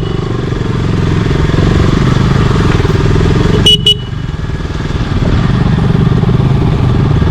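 Single-cylinder 200 cc motorcycle engine running steadily while riding, with a brief sharp double click about three and a half seconds in, after which the engine note dips slightly and then picks up again.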